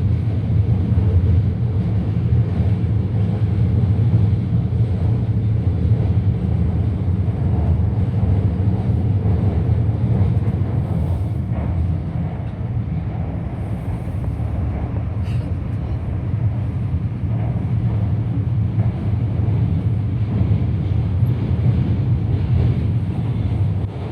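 Shanghai Metro Line 14 train running between stations, heard from inside the car: a steady low rumble of wheels on rails and the running gear, easing slightly about halfway through.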